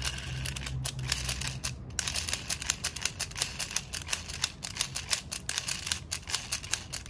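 Plastic Doraemon toy's spinning mechanism clicking rapidly and evenly, about seven or eight clicks a second, with a low hum that fades out about two seconds in.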